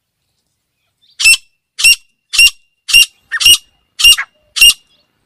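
Female grey francolin calling: seven loud, shrill notes, evenly spaced about two-thirds of a second apart, starting about a second in.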